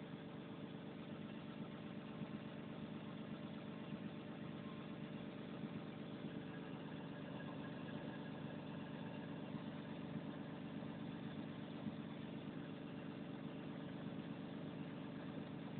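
Diesel engine of a Volvo 360 heavy machine running steadily, heard from beside the open engine bay, with no change in speed.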